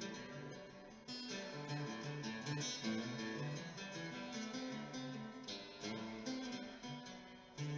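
Background music: an Ibanez acoustic guitar layered with a Boss looper, playing a repeating pattern of notes.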